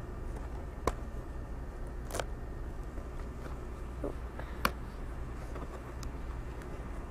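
A bakery cake container being opened, giving a few sharp clicks and snaps over a steady low hum.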